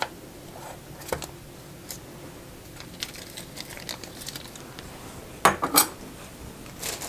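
Small metal springform pan being unclasped and its ring lifted off, with light scattered clicks and rustling of the baking paper lining, then a few louder, sharp metal clinks about five and a half seconds in.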